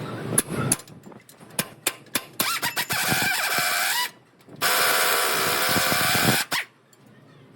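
A handheld power tool runs in two bursts of about a second and a half each, with a short pause between them, after a few sharp metal knocks.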